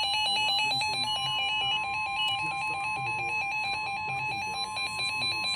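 Electronic emergency-alert tones announcing a severe thunderstorm warning: a fast, ringtone-like warble of beeps hopping between several pitches, over one steady high tone.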